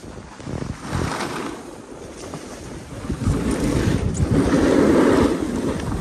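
Wind rushing over the microphone, growing louder about three seconds in.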